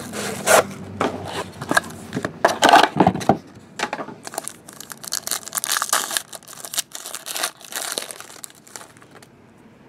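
Trading card packaging handled and opened by hand: cardboard rustling and tearing, then a foil wrapper crinkling. The crackles are irregular, densest in the first few seconds, and thin out toward the end.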